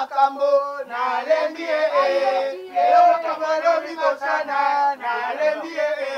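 Voices singing a chant-like tune, a man's voice with others, with long held notes over a steady lower tone.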